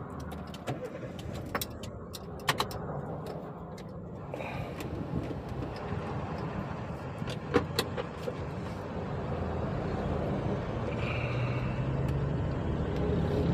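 Car engine and road noise as the car is driven, a steady low rumble that grows gradually louder, with a few sharp clicks. The engine has been logging a cylinder 1 misfire.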